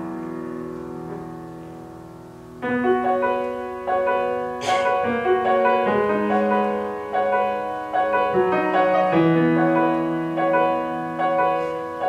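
Solo piano accompaniment in an instrumental interlude of a musical-theatre ballad. A held chord dies away over the first couple of seconds, then the piano plays a flowing passage of chords and melody notes.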